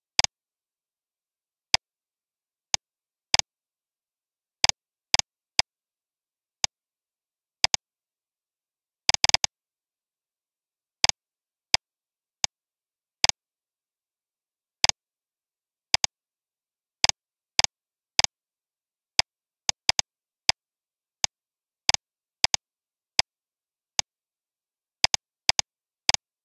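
Computer mouse button clicks, some single and some in quick pairs, at irregular intervals with dead silence between them. There is a quick run of several clicks about nine seconds in.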